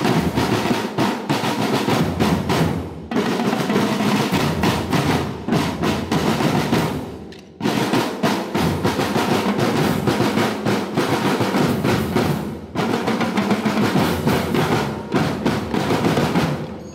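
Marching band drumline playing: marching snare drums with fast rolls over bass drums, breaking off abruptly three times for a moment.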